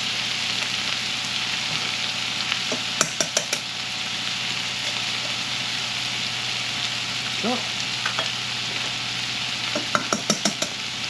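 Sausage, onions and peppers sizzling steadily in a frying pan. A quick cluster of sharp taps comes about three seconds in and again near the end, as eggs are cracked against the rim of a steel bowl.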